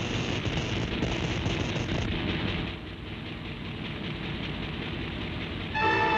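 Cartoon sound effect of a giant ray machine powering up: a steady rumbling noise with no clear pitch, easing a little about halfway. Just before the end a louder chord of steady tones cuts in as the beam fires.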